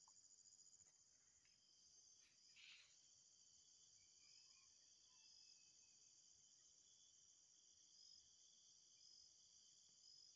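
Faint, steady chorus of insects, a high continuous trilling, with a short rustle about two and a half seconds in.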